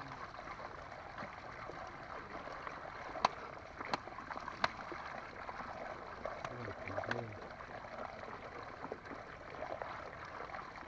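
Steady water noise with three sharp knocks in a row about three to four and a half seconds in, and a brief low voice a little later.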